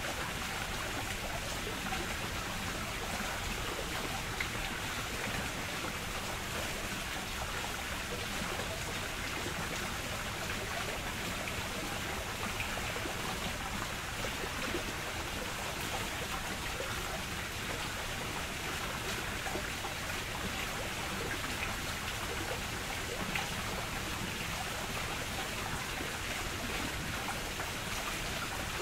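Running water splashing and rushing steadily, an even wash of sound with no breaks.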